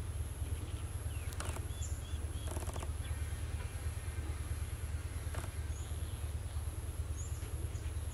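Steady low rumble with a few faint, short, high bird-like chirps and soft clicks scattered over it.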